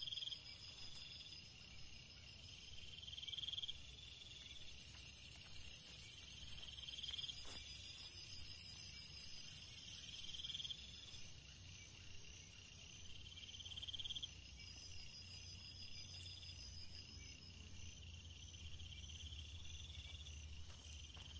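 Insects calling: crickets trilling in short pulsed bursts every couple of seconds, with a higher, steady insect buzz that starts about four seconds in and stops near the middle.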